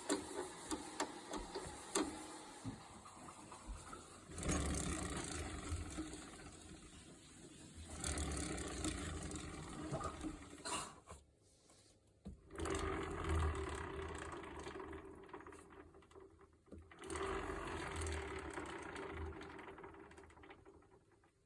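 Rear wheel of a Honda NSR50 turning with a whirring, ticking noise, the noise the owner is tracking down. After some ticks near the start it is set going four times, and each run starts loud and dies away over a few seconds.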